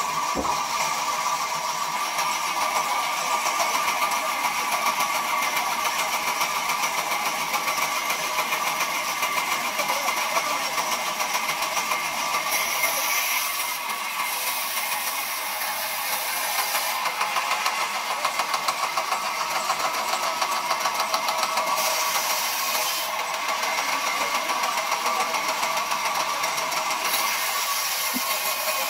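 Large sawmill band saw running with a steady machine whine while a log is fed through its blade. A louder high hiss rises and falls several times, in the middle and again near the end, as the blade cuts through the wood.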